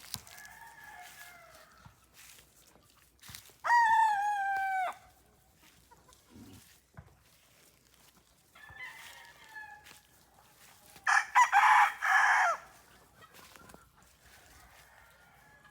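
Roosters crowing: two loud crows, one about four seconds in and one about eleven seconds in, each lasting over a second. Fainter calls from farther off come in between.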